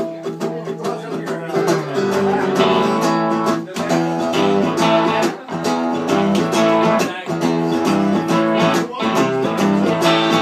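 Acoustic guitar strummed together with an electric guitar, playing the instrumental intro of a song live. Light sustained notes at first, then fuller, louder strumming from about two seconds in, with short breaks between phrases.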